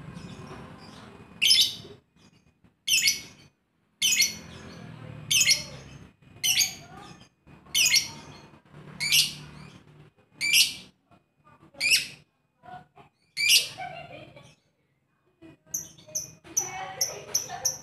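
Lovebird calling: a series of about ten loud, shrill calls spaced roughly a second and a half apart, then after a short pause a quick run of high, rapid chirps near the end.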